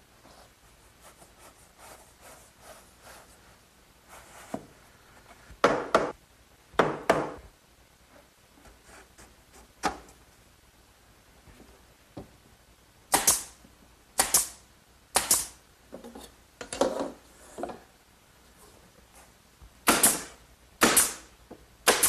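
Woodworking on wood by hand: about nine separate short strokes or knocks, some in pairs or threes, with quiet shop between them.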